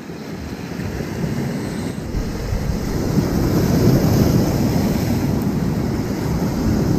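Wind buffeting the microphone over the wash of sea waves, building over the first few seconds and then holding steady.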